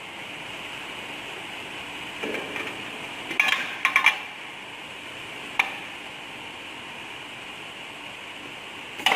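A few sharp metallic clinks and clicks from a double-head aluminium cutting saw being set up: its sliding head is moved into position and locked with the air brake. There is a short cluster of clinks about three and a half seconds in and single clicks later.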